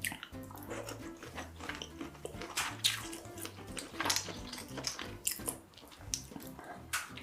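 Close-miked eating sounds: wet chewing, smacking and crunchy clicks from a mouth working on food, over background music.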